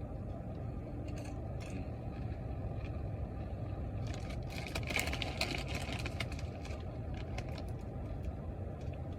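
Steady low rumble of a car heard from inside the cabin, with a few seconds of crackly crunching about halfway through.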